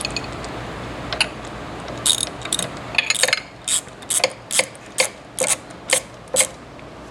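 Sharp metallic clicking from hand tools working on the filling machine's cylinder fittings: a short clatter, then eight evenly spaced clicks at about two or three a second, like a ratchet being worked back and forth.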